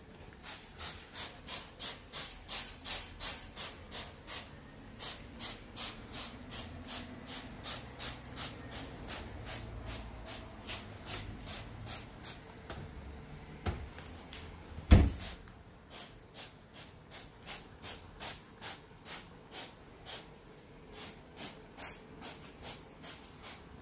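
Trigger spray bottle of oven cleaner squirted over and over, about two to three short hissing squirts a second, broken once a little past the middle by a loud thump.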